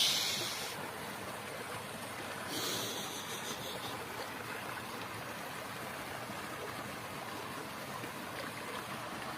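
Steady rush of flowing water, with a short hiss about two and a half seconds in.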